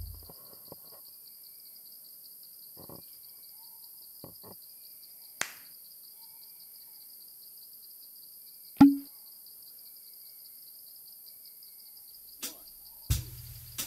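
Forest ambience: an insect chirring steadily in a pulsing high buzz, with a few scattered sharp knocks, the loudest about nine seconds in.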